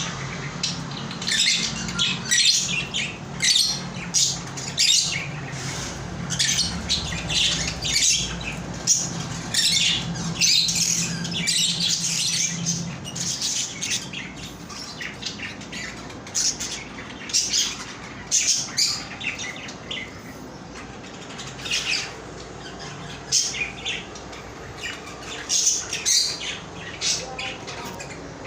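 Parrots giving short, sharp chirps and squawks over and over in quick, irregular succession.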